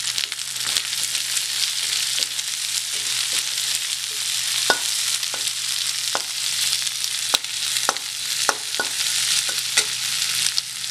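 Sliced onions frying in hot mustard oil in a metal kadhai: a steady sizzle, with a flat metal spatula scraping the pan as they are stirred, and a run of sharp clicks of the spatula against the pan in the second half.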